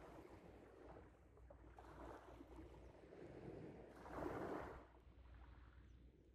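Faint small waves washing onto a shingle beach, each wash swelling and fading, the biggest about four seconds in.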